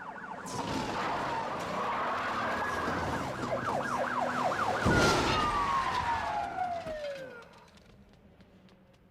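Emergency vehicle siren switching between a fast yelp and a slower wail as the vehicle drives up. About five seconds in comes a sudden loud whoosh, and the siren's pitch then falls away as it passes and fades.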